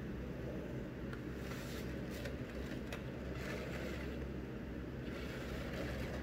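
Steady low rumbling background noise, with a few faint ticks in the middle.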